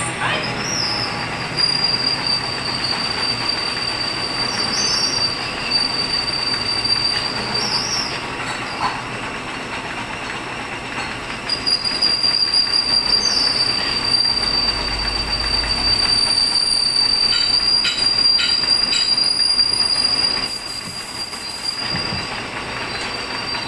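Machine tool cutting steel, giving a steady high-pitched squeal over a grinding, noisy hiss. The squeal drops out for a few seconds near the middle, then returns.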